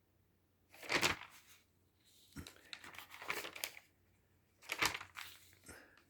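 Rustling, crinkling noise in three bursts, the first and last about a second long, the middle one longer.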